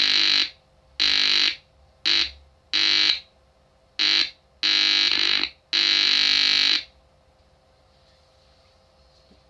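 Small speaker driven by a TDA2822 mini amplifier giving a loud, buzzy, distorted tone in seven start-stop bursts of uneven length; it stops about seven seconds in.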